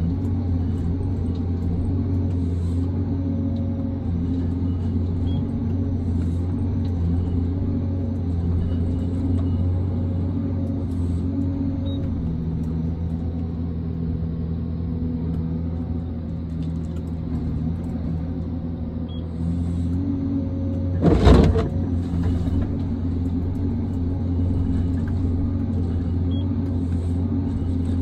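John Deere 1270G forestry harvester running steadily under work, its engine and hydraulics a low drone heard from inside the cab. About three-quarters of the way through comes one short, loud crash.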